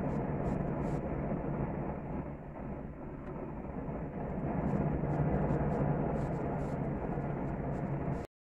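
Gas grill burners running under a tri-tip roast: a steady low rush of flame, with faint scattered pops from the cooking meat. The sound drops out abruptly near the end.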